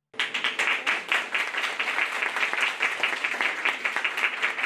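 Audience applauding, many hands clapping densely and steadily; it starts suddenly just after the beginning.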